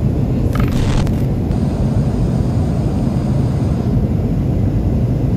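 Steady low rumble of a moving vehicle, with a brief clatter of clicks about half a second in.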